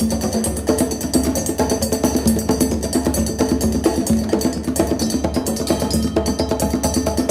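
Shamanic meditation music: a fast, steady run of percussion strikes over a held low tone.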